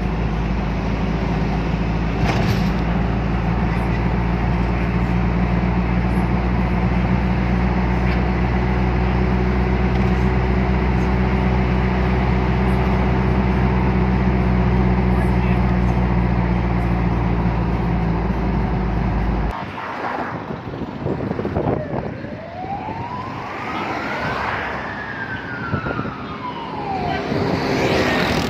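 A steady low vehicle drone that cuts off abruptly about two-thirds of the way through. After it comes a single slow rising-and-falling wail like a siren.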